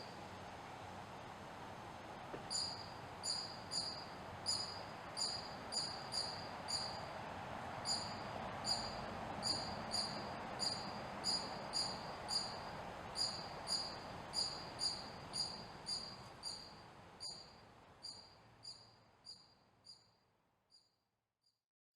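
A small animal's high-pitched chirp, repeated at a steady rate of about one and a half a second, fading out near the end.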